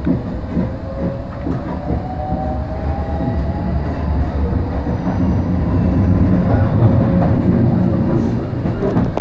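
Electric commuter train running on the rails: a steady low rumble with wheel clatter and a faint thin whine over it.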